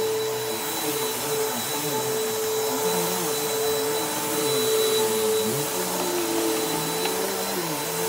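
Bissell PowerForce Helix upright vacuum cleaner running steadily: its motor whine holds one pitch while lower tones waver up and down beneath it.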